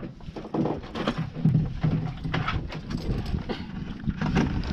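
Irregular knocks and clunks aboard a small fishing boat as the boatman sets the anchor, over a low rumble.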